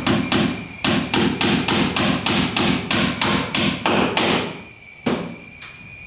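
A hammer driving nails through a metal rafter tie (hurricane strap) into the wooden rafter and top plate: a rapid run of sharp, ringing blows, about four to five a second, that stops about four and a half seconds in, then one last blow.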